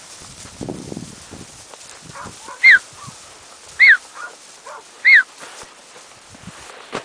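Pointer puppy giving three loud, short, high yelps about a second apart, each bending up and then falling, with fainter whines between them.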